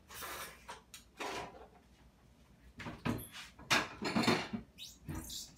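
Kitchen drawer and cupboard being opened and shut, with dishes and cutlery clattering as a plate and knife are fetched. It comes as a run of knocks and clatters, loudest a little past the middle.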